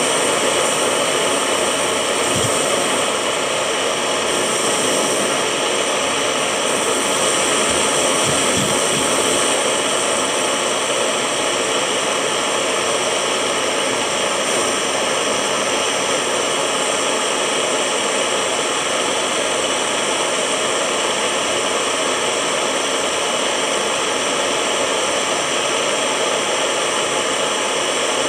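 Handheld butane gas torch burning with a steady, unbroken hiss, its flame held on silver melting in a ceramic crucible dish.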